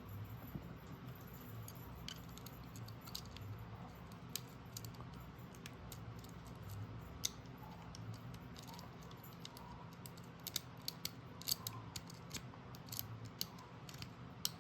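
Faint, irregular metallic clicks and scrapes of a lock pick working the pins of a Master Lock 141 pin-tumbler padlock held under tension from the bottom of the keyway. The clicks come more often in the last few seconds.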